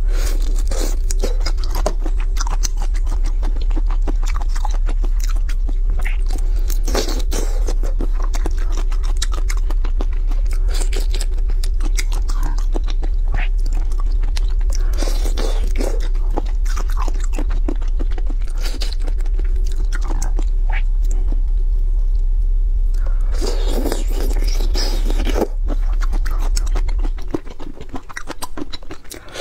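Close-miked crunching and chewing of whole spicy marinated shrimp, with shells crackling and wet sounds as the shrimp are bitten and peeled. A steady low hum runs underneath and stops near the end.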